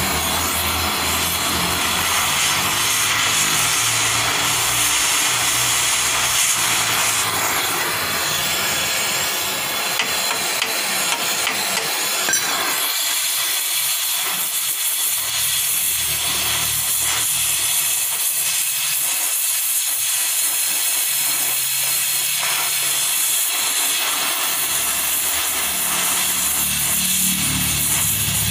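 Oxy-acetylene gas torch hissing steadily as its flame heats a rivet on a steel truck chassis rail.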